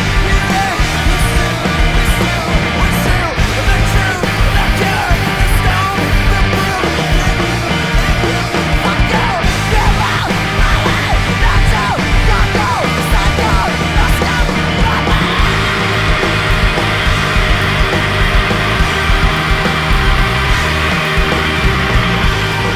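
Post-punk band music with distorted guitars, bass and drums, and shouted vocals. The guitars thicken into a denser wall of sound about fifteen seconds in.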